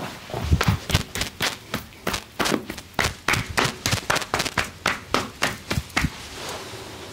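Hands slapping and tapping on a body in a quick, even massage rhythm, about four strikes a second, stopping about six seconds in.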